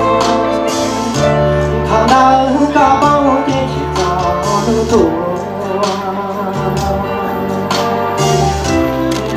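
A man singing a song into a handheld microphone over instrumental backing music with a steady bass line.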